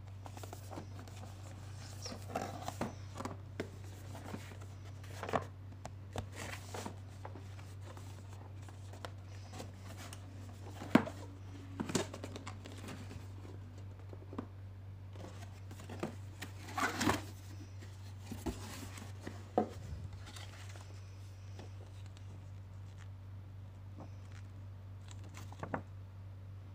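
Hands handling a cardboard router box and its paper insert: scattered taps, scrapes and paper rustles, with a sharp knock about eleven seconds in and another near twenty seconds. A steady low hum runs underneath.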